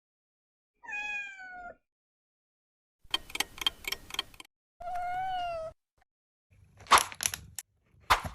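A cat meows twice: a short falling meow about a second in and a longer meow about five seconds in. A run of quick clicks falls between the two, and a few sharp knocks come near the end.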